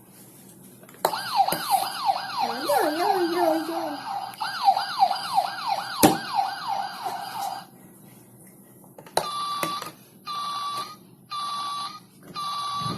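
Toy ambulance's electronic siren sound effect: a fast rising-and-falling yelp, about three sweeps a second, for some six seconds. After a short pause come four separate beeps on one pitch.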